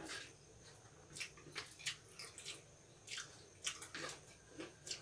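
Faint, scattered wet smacks and squishes of eating by hand: fingers mixing rice and mouths chewing.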